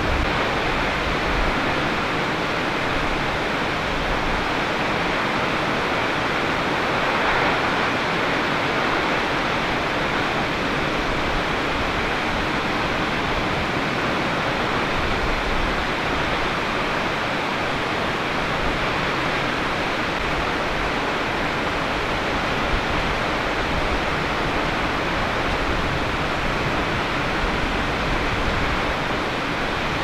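Shōmyō Falls and Hannoki Falls pouring down side by side: a steady, unbroken rush of falling water.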